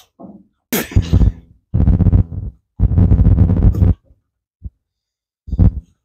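Low, wordless vocal sounds from a man: three drawn-out pitched sounds in the first four seconds, then a couple of short sounds near the end.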